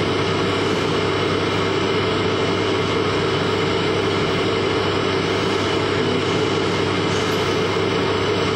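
A steady, unchanging rumble like a running vehicle, with a constant low hum underneath.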